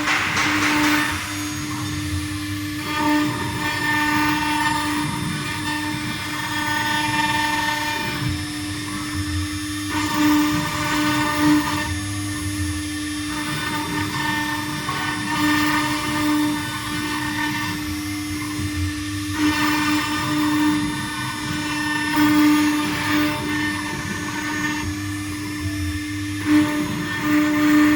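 CNC stone router's spindle running with a steady whine while the bit grinds through stone; the grinding swells and drops every few seconds as the cutting passes change.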